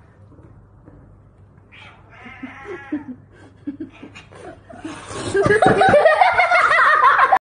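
A cat yowling: faint, wavering calls at first, then loud drawn-out yowls from about five seconds in.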